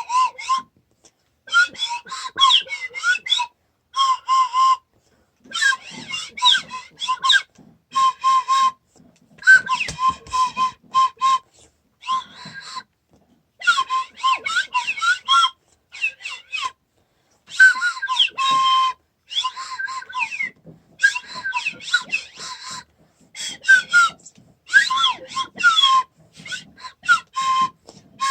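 Repeated bursts of high, rapidly warbling whistle-like chirps, each lasting a second or two, with short pauses between them.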